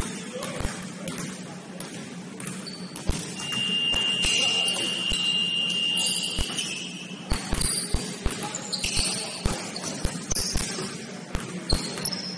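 Basketball game play on an indoor court: a ball bouncing on the floor in irregular thuds and sneakers squeaking in short high chirps. A single steady high tone lasts about three seconds, starting about three seconds in.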